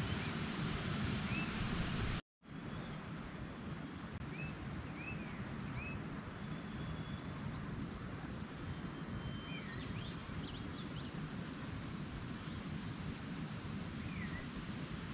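Outdoor mountain ambience: a steady rush of wind on the microphone, with birds giving short rising-and-falling chirps every few seconds. The sound drops out completely for a split second about two seconds in.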